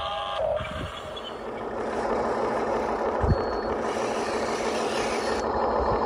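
Radio-controlled model bulldozer running steadily as it pushes dirt with its blade, with one sharp knock about three seconds in.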